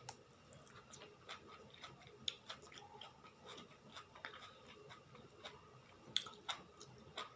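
Faint eating sounds close to the microphone: soft chewing with scattered small mouth clicks and a few sharper clicks near the end.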